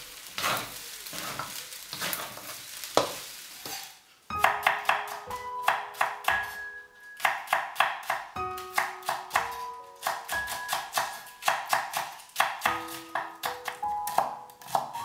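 Food sizzling and being stirred in a hot pan for about four seconds, then a cut to background music: a plucked, piano-like melody of short, sharply struck notes.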